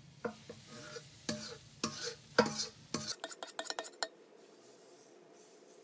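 A utensil scraping and clinking against a stainless steel mixing bowl as the last crepe batter is poured out onto a hot crepe pan, with a faint sizzle. The knocks stop about three seconds in and it goes very quiet.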